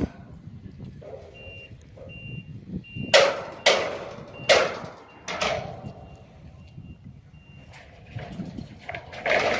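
A vehicle's reversing alarm beeping repeatedly, with several loud, ringing clanks in between, typical of metal being struck or set down.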